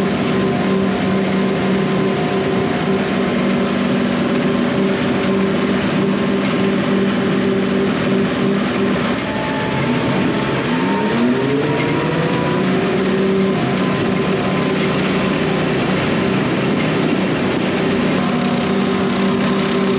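Tractor engine running steadily under load while bush hogging, with the rotary cutter's noise underneath. About ten seconds in the engine speed dips briefly, then climbs back up over a couple of seconds.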